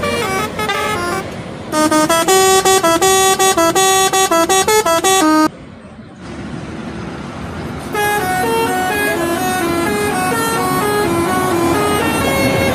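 Indonesian bus 'telolet' horn, a multi-tone air horn playing tunes: a quick run of short notes, then after a brief lull a second melody stepping up and down in pitch, over traffic and engine noise.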